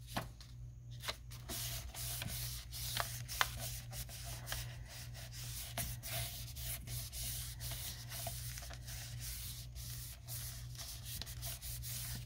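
Hands rubbing paper firmly over corrugated cardboard: a continuous dry scraping rustle with small clicks. The cardboard's ridges are pressing lines into the paper to write on.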